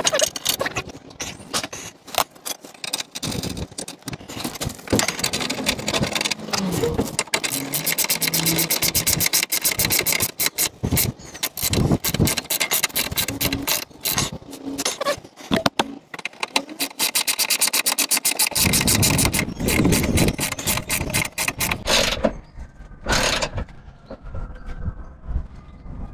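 Socket ratchet clicking in long fast runs as the bolts of a metal brace bar under a car are wound in, with metal scrapes and knocks between runs.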